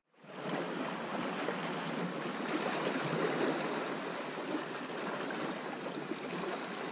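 Calm sea washing gently against shoreline rocks: a steady hiss of small waves and lapping water, starting after a brief moment of silence.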